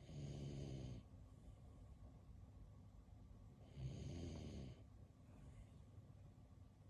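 Shiba Inu dog snoring: two snores through the nose, each about a second long and about four seconds apart.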